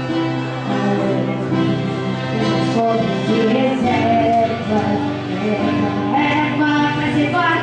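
Music: singing over steady, held accompanying notes.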